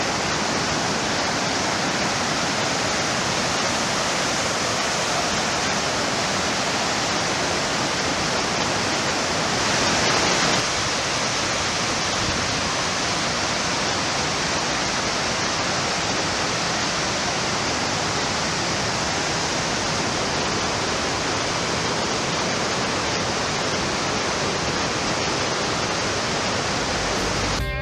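Waterfall rushing as a steady, even roar of falling water, briefly a little louder about ten seconds in.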